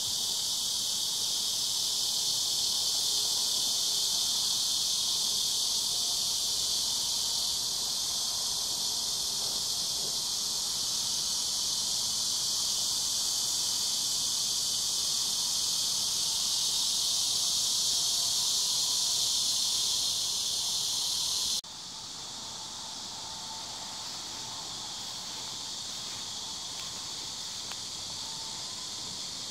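Steady, high-pitched chorus of insects. About two-thirds of the way through it drops abruptly to a quieter level and carries on.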